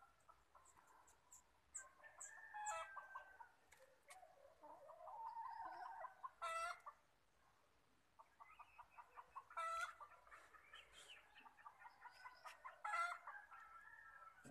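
Chickens clucking faintly in quick runs of short calls, with a few louder single calls.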